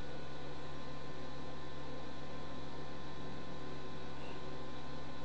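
Steady electrical mains hum with a layer of hiss, unchanging throughout, with no other sound on top.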